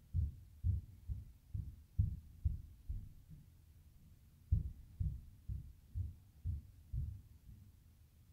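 Dull low thumps at about two a second, in two runs: seven, a pause of about a second and a half, then six more.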